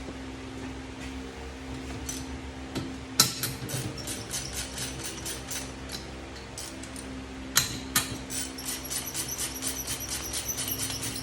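Hand tools on a 1996 Harley-Davidson Sportster 1200 engine during teardown: a sharp metal knock about three seconds in, two more near eight seconds, then a socket ratchet clicking about five times a second to the end, over a steady hum.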